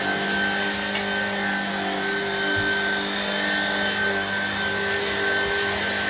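Cordless stick vacuum running steadily as it is pushed across carpet, a constant motor whine.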